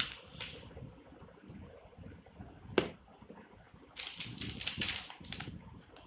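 Hands handling a coiled cable and its plastic packaging: scattered clicks, one sharp tap nearly three seconds in, then a run of crackling from about four seconds to five and a half.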